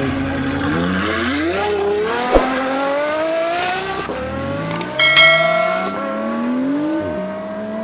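Car engine accelerating through the gears, its pitch rising steadily and dropping back at each shift, about three times. A short sharp noise cuts in about five seconds in.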